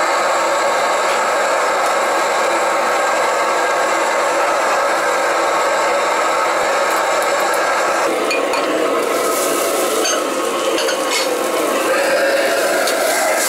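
Steady roar of a restaurant wok range. From about eight seconds in, lagman noodles and vegetables are stir-fried in a wok over it, with sizzling and a metal ladle clinking and scraping against the pan.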